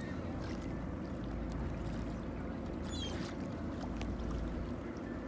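Steady low rumble of a boat's engine under wind and water noise, with a brief high bird call about three seconds in.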